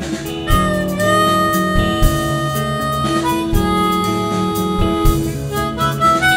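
Blues-style harmonica played with the hands cupped around a handheld microphone, holding long notes and chords. A live band with bass guitar and drums plays behind it.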